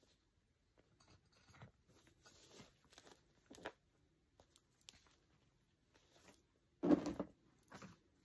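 Faint rustling and small clicks as a vinyl pouch with leather fringe is handled and turned over, with one louder rustling thump near the end as it is set down.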